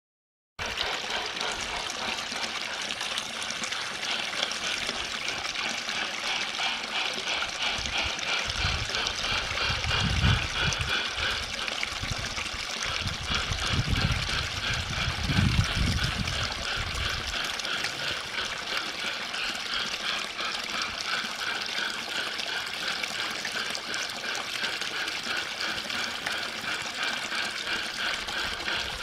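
Water trickling and splashing steadily, as from a small garden stream or waterfall, with a few low rumbles in the middle.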